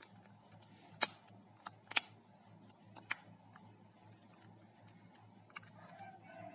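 Several sharp plastic clicks and taps from a mobile phone being handled during reassembly, the loudest about one and two seconds in.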